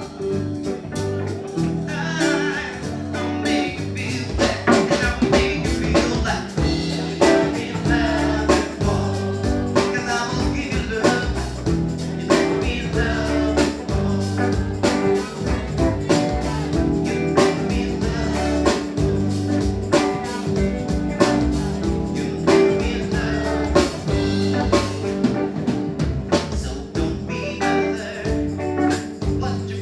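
Live band music: two electric guitars and a drum kit playing a steady beat, with a man singing at the microphone.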